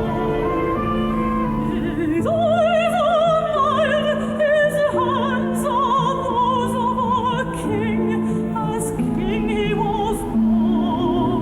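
Opera music: a solo voice singing with strong vibrato over orchestral accompaniment.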